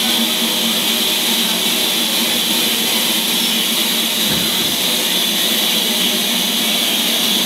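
Steam hissing steadily from a standing BR Standard Class 4 4-6-0 steam locomotive, No. 75078, a continuous even hiss with no breaks.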